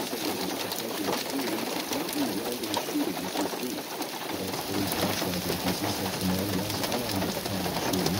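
Heavy rain mixed with hail pelting pavement and parked cars: a steady hiss full of small ticks of impacts. A low wavering hum grows stronger from about halfway through.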